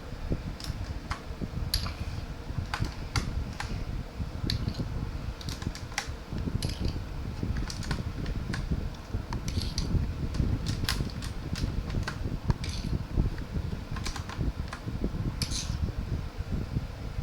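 Irregular sharp plastic clicks from a K28 mechanical keyboard being handled during cleaning, over a steady low rumble.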